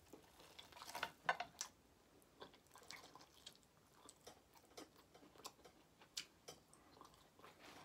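Faint wet clicks and smacks of a person eating barbecued ribs and licking his fingers close to the microphone, loudest about a second in.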